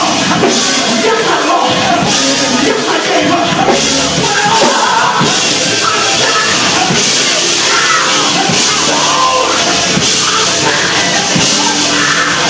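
Loud live church music with drums on a steady beat, and voices singing and shouting over it.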